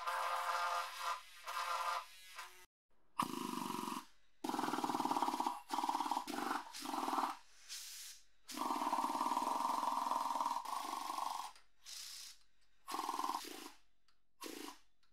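Power chisel hammer with a flat chisel bit running in short bursts of one to three seconds, chipping caked rust and dirt off a rusted steel heater casing. The bursts begin after a brief silence about three seconds in.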